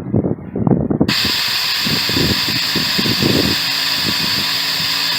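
Compressed air from an air compressor hissing steadily out of an RV propane line as the line is blown clear, starting suddenly about a second in. A low rumbling runs underneath and settles into a steady hum.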